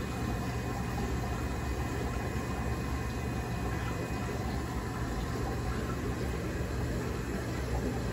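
Steady low hum with an even hiss, the running noise of aquarium equipment such as a filter or pump, with no distinct events.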